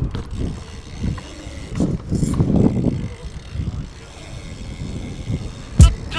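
BMX bike riding over concrete: tyre rumble and wind buffeting the camera microphone, rising and falling in waves. A sharp loud knock comes near the end.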